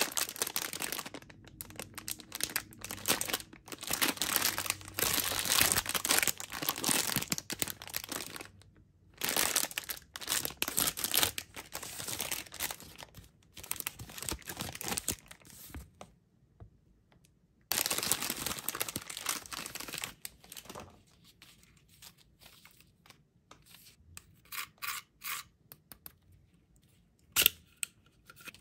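Crinkly plastic packaging of a PEZ candy dispenser and a PEZ candy wrapper being handled and torn open, in long spells of crackling rustle with short pauses. Near the end come a few sharp short clicks as the plastic dispenser is worked open and loaded.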